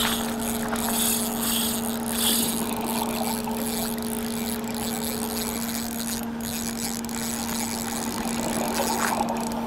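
Title-sequence sound effects: a steady hum held on two low tones, with a hiss over it that swells twice in the first few seconds, and a sharp hit right at the start.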